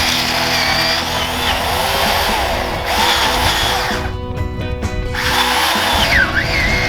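Craftsman 18-inch electric chainsaw cutting through a pine trunk, its dense cutting noise dropping away for about a second near the middle before it picks up again.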